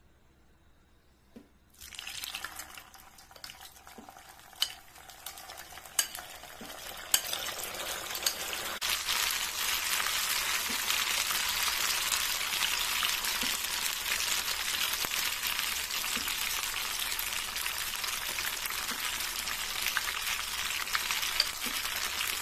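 Battered cauliflower and mushroom pieces deep frying in hot coconut oil: the sizzle starts about two seconds in and grows louder over the next several seconds as more pieces are dropped in, then holds steady. A few light clicks of the spoon sound over it.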